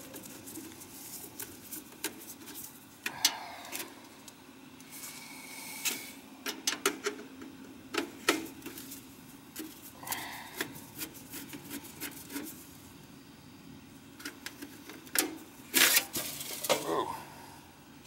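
Sheet-metal hood of a Field Controls power venter being unfastened and pulled off with a screwdriver: scattered metal clicks, taps and short scrapes, the loudest cluster about sixteen seconds in, over a faint steady hum.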